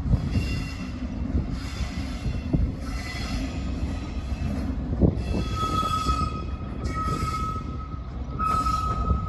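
A train moving on the rails over a continuous low rumble, with wheel squeal. A steady high squeal sets in about five seconds in, among repeated hissing surges.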